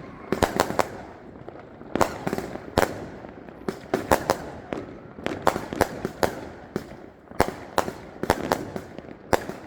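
Fireworks going off: an irregular string of sharp bangs, about two a second, some coming in quick pairs or clusters.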